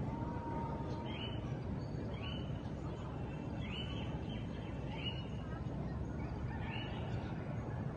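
A bird calling repeatedly outdoors: short high calls that rise and then level off, about one every second or so, over a steady low background rumble.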